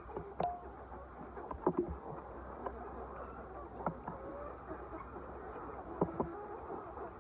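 A flock of chickens calling at once, a dense overlapping murmur, with scattered sharp clicks and a low steady hum underneath.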